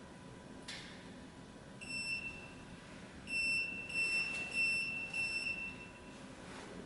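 High-pitched electronic beeping: one short beep about two seconds in, then a longer run of beeps broken by brief gaps for about two and a half seconds.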